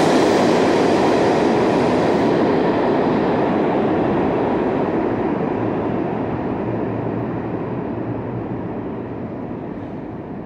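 New York City subway train running away along the tracks, its rumble and wheel noise fading steadily. The high hiss dies off within the first few seconds.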